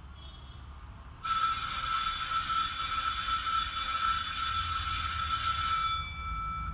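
School bell timer's electric bell ringing: a steady, high ring starts suddenly about a second in, holds for about five seconds, then fades near the end. It is the timed bell signal that comes before a scheduled announcement.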